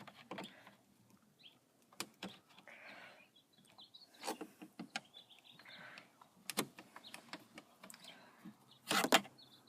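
Scattered clicks, taps and knocks of plastic dashboard trim and screws being handled, with two short scraping sounds about three and six seconds in.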